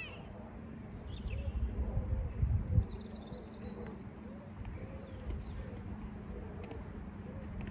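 Small birds chirping and singing, with low rumbling noise on the microphone and a single knock about three seconds in.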